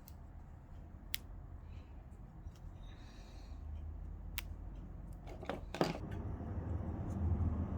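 Stitches being snipped to unpick a zip from fabric: a few separate sharp snips, then a quick cluster of them about five to six seconds in.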